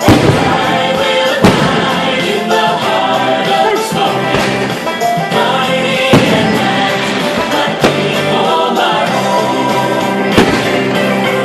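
Fireworks bursting during a show set to music: a loud song with choir-like singing plays throughout, with several sharp firework bangs standing out above it, the loudest near the start, a second and a half in, about six seconds in, near eight seconds and near the end.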